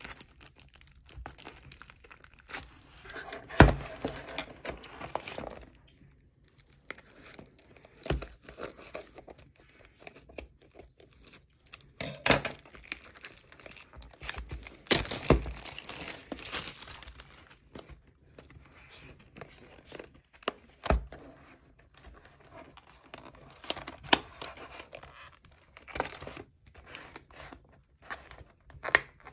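Packaging of a Japanese Pokémon booster box being torn open and crinkled by hand, with irregular rustling and several sharp snaps as the wrapping and cardboard lid are worked open.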